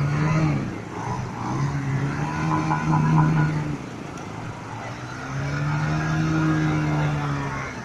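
Motorcycle engine revving in three held pulls: a short one at the start, then two of a couple of seconds each, the last rising and easing off in pitch.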